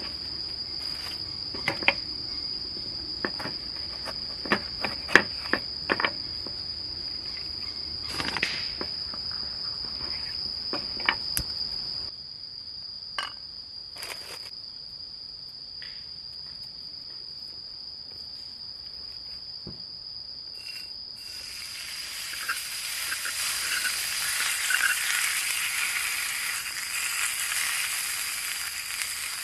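Insects trill steadily at a high pitch, with scattered clicks and knocks of handling in the first dozen seconds. About 21 seconds in, loud sizzling starts and builds as food begins frying in a hot pan.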